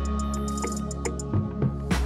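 Background music: held bass and keyboard notes with scattered percussion hits.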